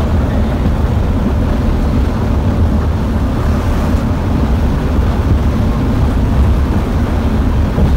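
Scania K360 IB coach heard from inside its front cabin while cruising at highway speed: a steady low rumble of engine and tyre/road noise.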